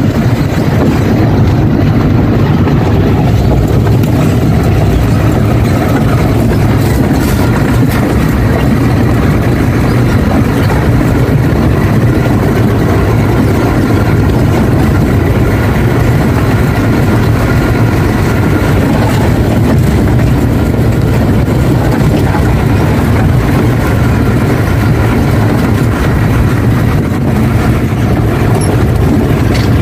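Steady drone of an Ashok Leyland truck's diesel engine and road noise, heard from inside the cab while driving.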